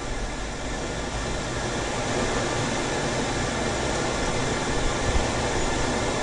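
Steady rushing noise of a metal-melting furnace running, with a low rumble underneath, growing slightly louder over the first couple of seconds.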